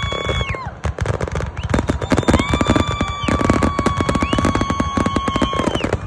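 Fireworks display: a dense, rapid crackling and popping from ground fountains and aerial shells. A steady, high, whistle-like tone is held twice: briefly at the start and for about three seconds in the middle.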